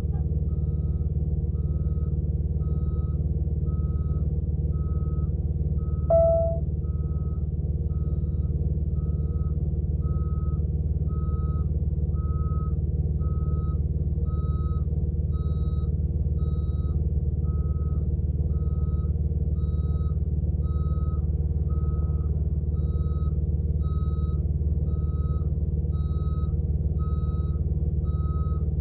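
Backup alarm of a semi-truck tractor reversing a Super B-train tanker, beeping steadily about once a second over the low, even running of a diesel truck engine. A single short, louder tone cuts in briefly about six seconds in.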